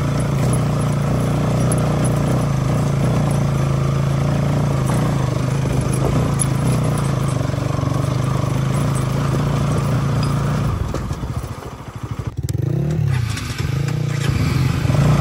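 Motorcycle engine running steadily under way. Near the end it drops to a slower, pulsing note for a moment, gives a short rise and fall in pitch, then settles back into its steady running.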